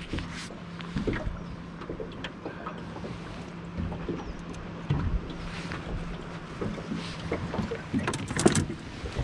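Steady low hum of an electric bow-mount trolling motor on a small boat, with scattered knocks and clicks of rod and gear being handled. The loudest cluster of knocks comes near the end.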